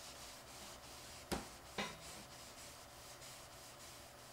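Melamine foam eraser (Magic Eraser) scrubbing back and forth over the beige plastic case of a Macintosh IIsi: a faint, rhythmic hiss of quick rubbing strokes. Two sharp clicks about half a second apart, a little over a second in, are the loudest sounds.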